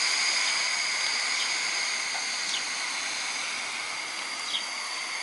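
Steady hiss of steam from a small coal-fired model locomotive's vertical boiler, with a faint steady whine over it and a couple of light clicks.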